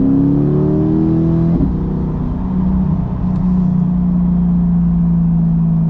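C8 Corvette's 6.2-litre V8 through a Corsa Xtreme exhaust, accelerating with its pitch rising. About a second and a half in, the pitch drops suddenly, and the engine then holds a steady drone.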